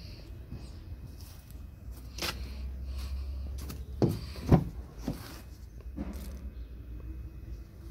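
Rear door of a Volkswagen Amarok double-cab pickup being unlatched and swung open: two sharp clunks close together about four seconds in, with lighter knocks before and after.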